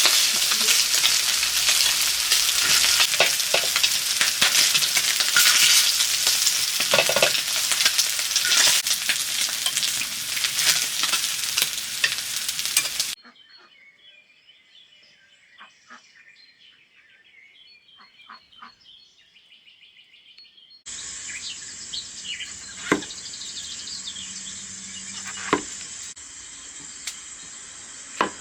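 Food frying with a loud sizzle and the clicks and scrapes of stirring in a large pan. After about 13 seconds it cuts abruptly to quiet outdoor birdsong, and later to a steady high chirring with a few sharp knocks.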